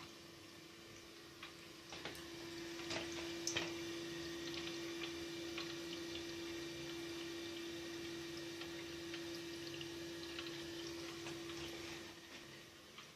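Lecico Atlas toilet cistern refilling after a flush: water running in with drips and a steady hum from the fill valve, dying away near the end as the valve shuts off.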